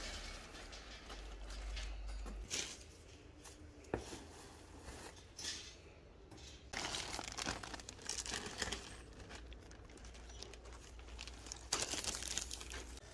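Clear plastic packing film crinkling and rustling in irregular bursts as it is pulled off black wire cage panels, with a single knock about four seconds in.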